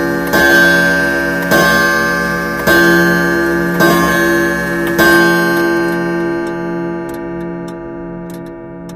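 Quiz countdown-timer sound effect: a ringing pitched tone struck about once a second, five times, each strike fading into the next. After the last strike it dies away while faint clock ticks come in near the end.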